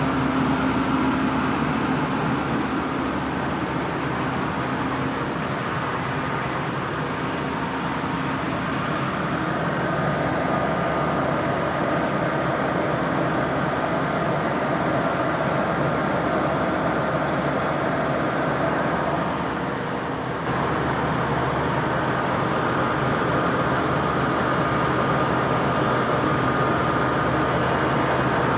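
Rice milling unit running under power from its Mitsubishi 6D14 six-cylinder diesel engine: a steady, dense machinery noise, dipping briefly about twenty seconds in.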